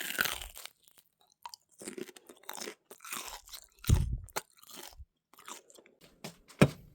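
The crisp baked crust of a butter rice cake (butter mochi) crunching and crackling in a run of irregular bursts, with heavier thuds about four seconds in and again near the end.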